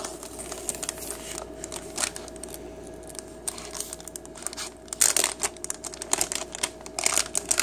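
Plastic packaging pouch crinkling and crackling as it is handled and torn open by hand, with louder tearing crackles about five seconds in and again near the end.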